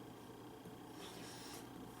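Faint soft squishy eating sounds, such as chewing, with a brief soft noise about a second in, over a steady low hum.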